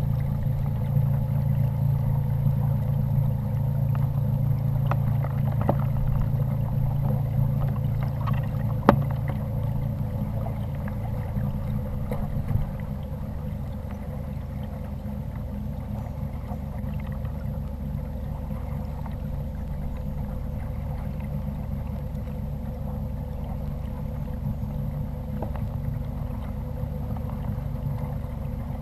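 Kayak under way, with a steady low hum and water noise against the hull heard through the kayak-mounted camera. There is a sharp knock about nine seconds in, and the hum drops in level about twelve seconds in.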